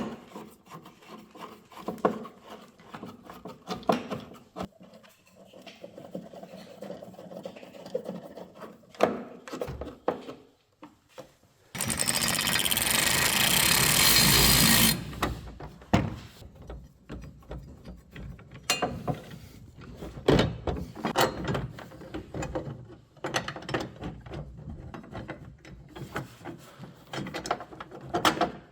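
Scattered clicks and knocks of hand work with tools, and about twelve seconds in a power drill runs steadily for about three seconds, the loudest sound here.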